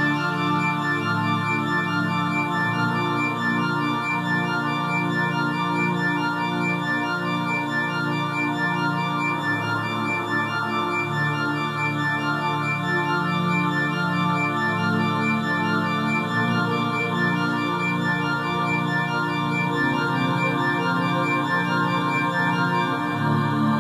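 Background music: slow, sustained keyboard chords with no beat, the chord changing every few seconds.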